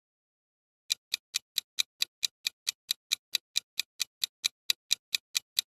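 Countdown timer ticking sound effect: fast, evenly spaced clock ticks, about four to five a second, starting about a second in.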